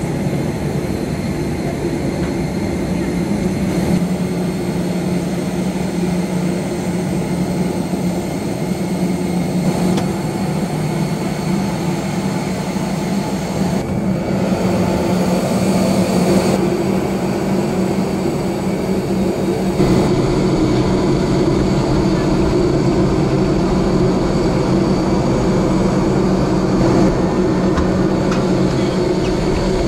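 Steady mechanical drone with a strong low hum and a faint high whine, changing abruptly in character several times.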